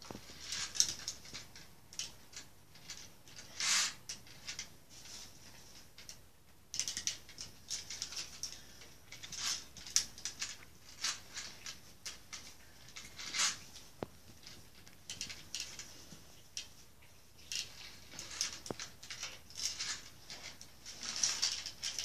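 Toy construction vehicles being handled by hand: light, irregular clicks, taps and rattles of small plastic and die-cast parts, with a few louder knocks.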